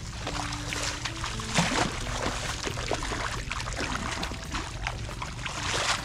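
Sloshing and splashing of hands and booted feet in shallow, muddy paddy water, with a louder splash about one and a half seconds in.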